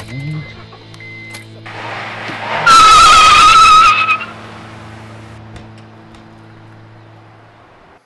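Car engine starting and revving up, then tires squealing loudly for about a second and a half as the car peels away. A low hum fades out afterwards.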